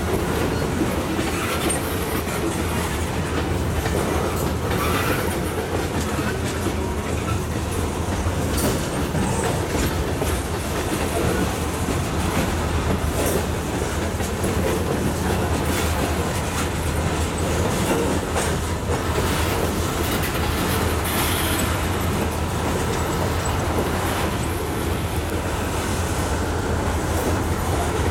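Freight cars of a manifest train rolling past at steady speed: a continuous rumble of steel wheels on rail, with clickety-clack as the wheels cross rail joints.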